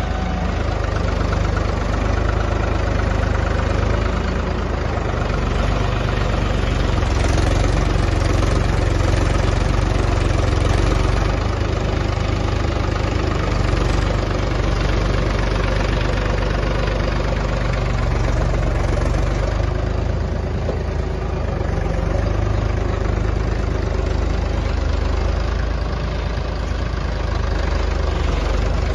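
Mahindra tractor's diesel engine running steadily while it works a front loader.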